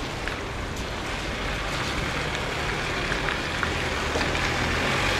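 Road vehicles driving over a level crossing on a wet, slushy road: steady tyre hiss on wet asphalt under a low engine hum, with a few light clicks, growing a little louder near the end as a truck approaches.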